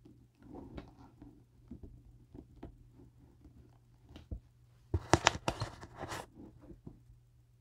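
Fabric rustling and light handling clicks as a cloth skirt panel is arranged and fitted on a dress form, with a louder spell of rustling and sharp clicks about five seconds in.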